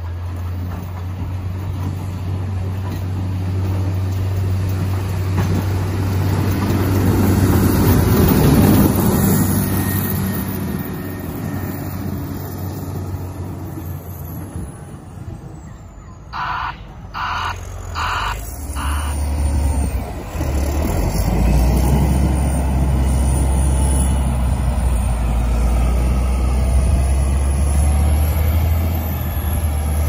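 John Deere 770G motor grader's diesel engine running as it plows snow, with a broad scraping rush from the blade pushing snow along the road. A little past halfway, its backup alarm sounds four short beeps. The engine grows louder toward the end.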